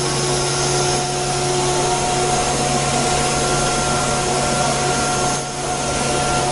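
CNC router spindle running with its bit cutting a curved wooden workpiece: a steady whine over a rough cutting noise, briefly a little quieter about five and a half seconds in.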